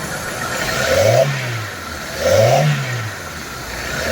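Hyundai i10's 1.1-litre four-cylinder engine idling and blipped twice with the throttle, each rev rising and falling in pitch. It runs smoothly, its misfiring cured by refitting the spark plug leads in the right firing order.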